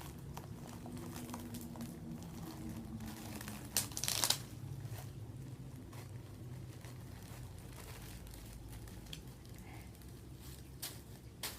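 Bag of popcorn being handled: crinkling and crackling of the packaging, with one short, louder rustling burst about four seconds in.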